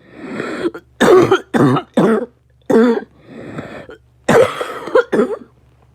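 A person coughing in fits: four harsh coughs in quick succession, a drawn-in breath, then three more coughs near the end.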